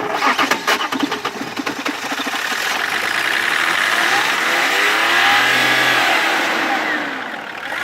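Car engine just started, running with rapid even firing pulses, then revved once: its pitch climbs to a peak about halfway through and falls back toward idle near the end.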